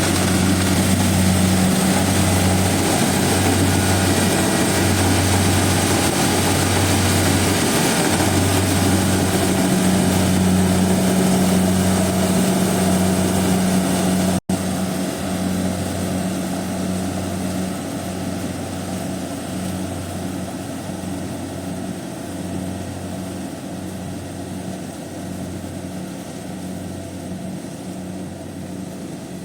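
Kubota DC70 combine harvester running steadily, a loud throbbing engine drone with a wide hiss of machinery above it. About halfway through the sound breaks off for an instant, and after that it grows gradually quieter.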